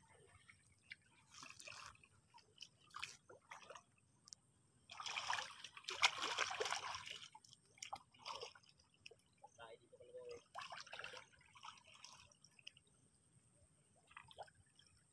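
People wading and groping with their hands in a shallow, muddy ditch, with irregular sloshes, trickles and splashes of water. A longer, louder stretch of splashing comes around the middle.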